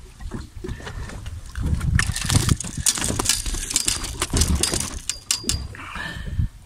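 Small mahi-mahi flapping and slapping against a fibreglass boat deck as it is held down and unhooked: irregular knocks and thumps, the loudest about two and four seconds in.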